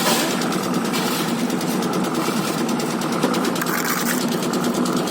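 A small machine running steadily with a fast, even mechanical clatter.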